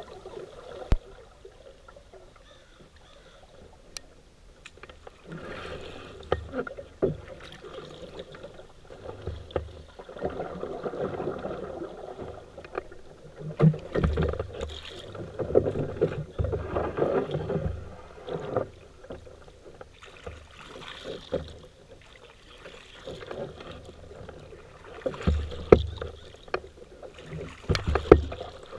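Paddle strokes swishing and splashing through river water in uneven swells every second or two, with a few sharp knocks.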